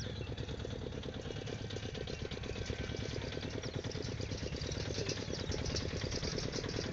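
A small engine running steadily with a rapid, even chug.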